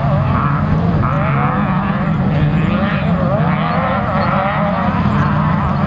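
Off-road race vehicle engines running loudly, their pitch rising and falling repeatedly as the throttle is worked.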